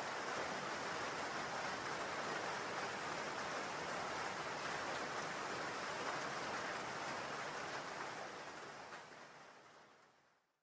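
A steady rush of water-like ambient noise that fades out over the last two seconds into silence.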